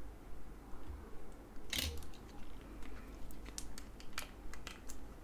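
Small clicks and taps of a precision screwdriver being picked up and worked on the tiny screws that hold the scroll-wheel assembly and encoder inside an opened Logitech G703 mouse. There is one sharper click with a dull knock about two seconds in, then a run of faint, irregular clicks.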